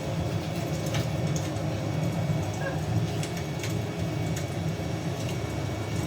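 Fire crackling: scattered, irregular sharp pops over a steady low rumble.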